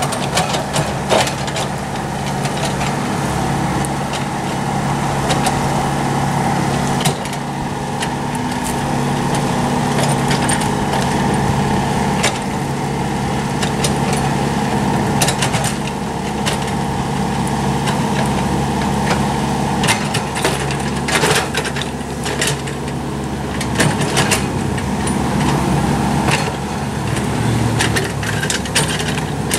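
Komatsu PC75UU mini excavator's diesel engine running steadily under hydraulic load while the machine levels sand and gravel, with stones scraping and clattering under the bucket and blade in frequent short knocks.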